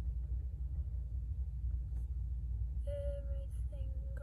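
Steady low rumble of background noise, with a girl's voice humming a short held note about three seconds in and starting another, falling note near the end.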